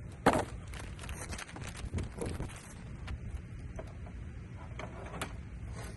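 Clicks and knocks from a flex-fuel kit's fuel lines and ethanol sensor being handled, the sharpest about a third of a second in, over a steady low rumble.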